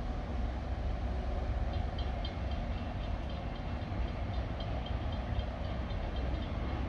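Freight train rolling past with a steady low rumble. About two seconds in, a rapid repeating high ding joins it.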